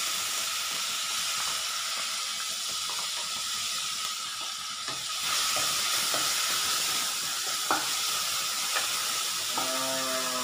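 Crushed shallots and green chillies frying in hot oil in a pan: a steady sizzle, with a few light clicks and scrapes of a spatula stirring against the pan in the second half.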